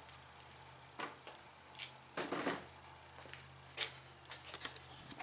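Several sharp clicks and light knocks from handling, with a short cluster of them near the middle, over a faint steady low hum.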